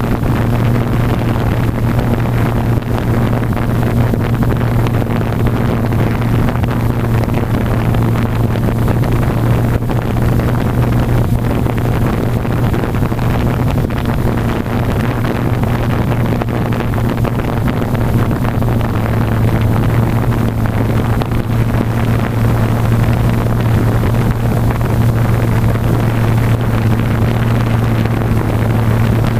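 Blade 350 QX quadcopter's four brushless motors and propellers humming steadily, heard from the GoPro mounted on the drone, with rushing propeller air on the microphone.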